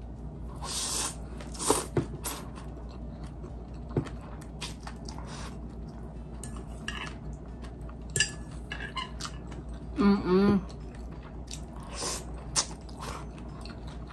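A person eating soba noodles with chopsticks: noodles slurped in a few short hissing pulls in the first couple of seconds, then chewing, with light clicks of chopsticks against the bowl and plate.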